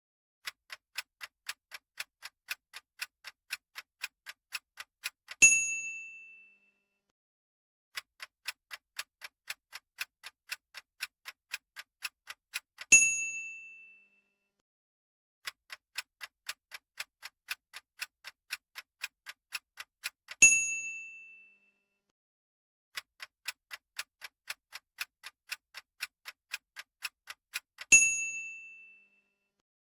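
A quiz countdown-timer sound effect repeats four times. Each time it ticks at about three ticks a second for about five seconds, then ends in a single loud bell-like ding that rings out.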